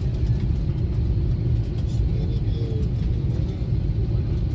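Steady low rumble of an airliner cabin: engine and airflow noise heard from inside the passenger cabin.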